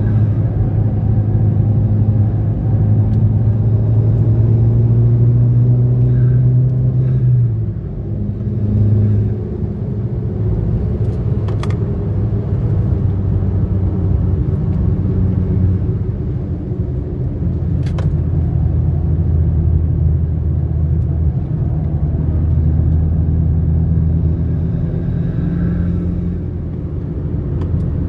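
Skoda Octavia RS engine and tyre noise heard from inside the cabin at speed on a track. The engine note climbs slightly, drops off about seven and a half seconds in as the throttle is lifted, then pulls again. Two sharp clicks are heard part way through.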